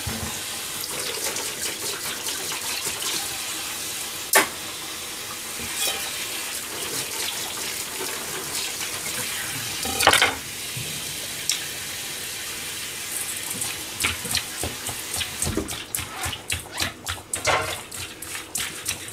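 A steady rushing hiss with a sharp clink about four seconds in and another about ten seconds in. Near the end comes a quick run of small clicks and wet handling noises as hands mix cut chicken gizzards in a stainless steel bowl.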